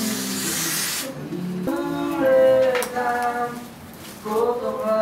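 Wordless voice sounds: long, wavering vocal tones with a brief hiss near the start.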